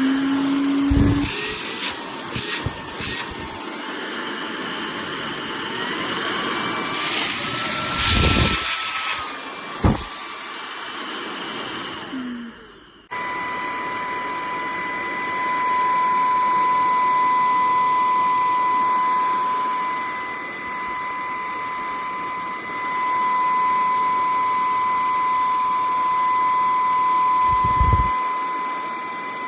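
Stanew 22.2 V 150 W cordless vacuum cleaner running, with several knocks and bumps over the first half. Later the motor runs steadily with a high whine.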